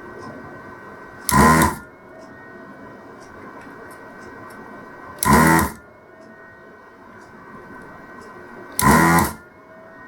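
Desoldering gun's vacuum pump firing three times, each a short loud buzz of about half a second, sucking molten solder off the audio socket's pins. A steady quieter hum runs between the bursts.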